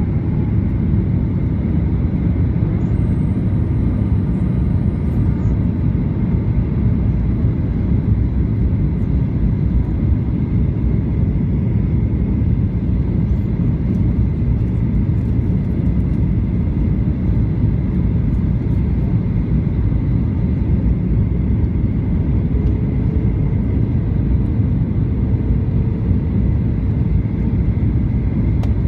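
Steady cabin noise inside a Boeing 737 on approach: engine and airflow noise, heaviest in the low end, heard from a window seat over the wing with the flaps extended.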